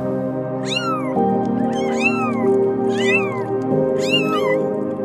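A kitten mewing four times, about once a second, each high mew rising and then falling in pitch, over background music with held chords.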